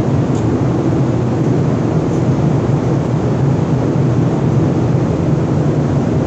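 Steady, loud low drone of shipboard machinery on an enclosed cattle deck of a livestock carrier, a deep hum with a few constant tones that does not change.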